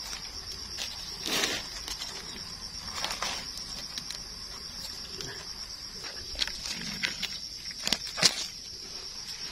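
Forest insects droning steadily at one high pitch, with scattered rustles and crackles, the loudest about a second in and near the end.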